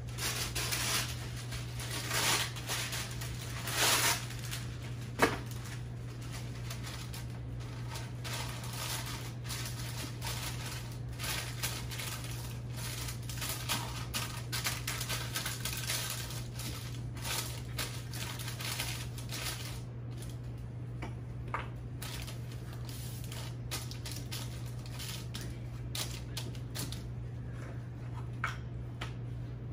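Parchment paper rustling and crinkling as it is pressed and folded into a glass baking dish, with light taps against the glass, over a steady low hum.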